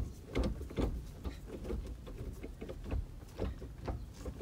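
Manual gear lever of a 1999 Honda Civic Si, fitted with a weighted aftermarket shift knob, being moved through the gears: a string of irregular light clicks and knocks as the lever moves through the gate and drops into gear.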